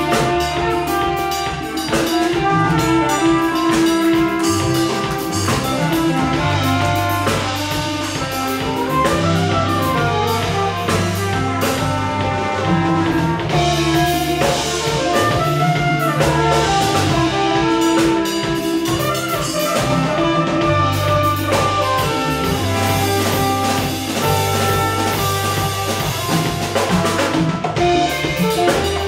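A live band plays contemporary Yoruba-style music: drum kit, congas, bass and guitars under violins, clarinet and brass, with steady bass notes and continuous melody lines.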